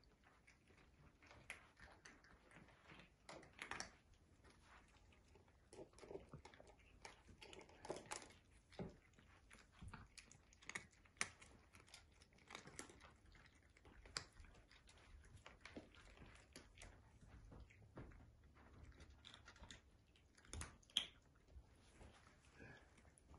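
Cats chewing dry kibble: faint, irregular crunching with occasional sharper clicks.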